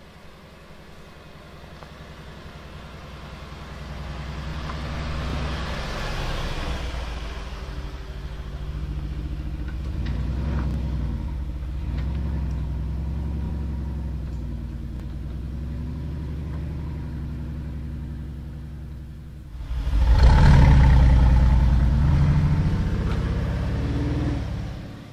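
Mercedes-Benz G500 4x4²'s twin-turbo V8 running under load as the truck crawls over a rutted dirt track, growing louder as it comes closer. About twenty seconds in the engine note jumps much louder for a few seconds as the throttle opens, then falls away sharply near the end.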